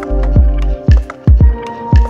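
Background music with a steady kick-drum beat, about two beats a second, over held notes.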